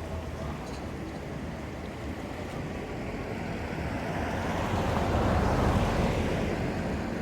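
Ocean surf washing ashore: a steady hiss of water that swells into a louder wave wash a little past halfway, then eases off.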